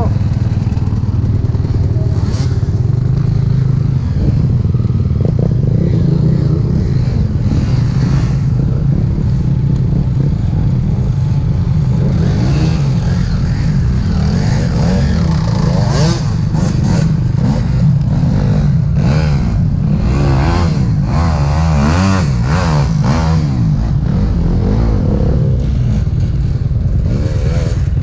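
Two-stroke Husqvarna enduro motorcycle running hard, its engine pitch rising and falling as the throttle is worked, most in the second half. Scattered clatter and knocks come through over the engine.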